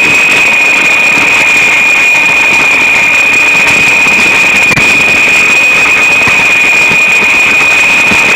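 Small electric RC helicopter's motor and rotors, heard up close, running with a loud, steady high-pitched whine that holds one pitch throughout.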